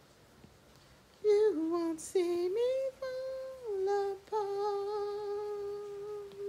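A woman humming a tune without words: after about a second of quiet, a few held notes step up and down, then one long note that wavers slightly near the end.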